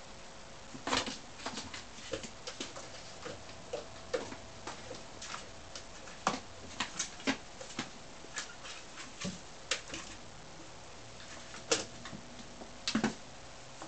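Kittens' paws and claws tapping and scratching on cardboard boxes and a wooden floor as they play: a run of irregular light clicks and taps, with a few louder knocks about a second in and near the end.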